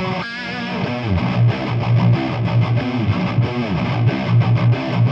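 High-gain distorted electric guitars through the Brainworx Diezel VH4 amp-sim plugin, playing a heavy riff. Rhythmic low chugging notes run under a lead line that bends and wavers above them, starting just after the beginning.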